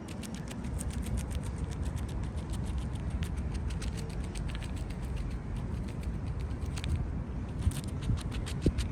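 Squirrel gnawing and chewing food, a rapid run of small crunching clicks that thins out near the end, over a steady low rumble.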